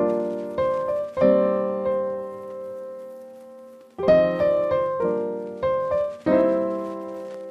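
Background piano music: chords struck and left to ring out, fading for a while in the middle before new chords come in.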